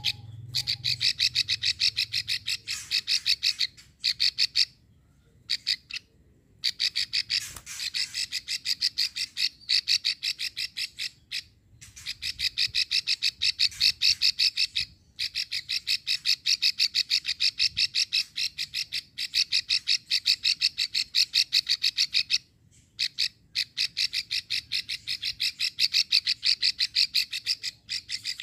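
Female plain prinia (prenjak sawah) giving its long rattling 'ngekrek' call: long runs of fast, even, dry clicking notes, broken now and then by brief pauses.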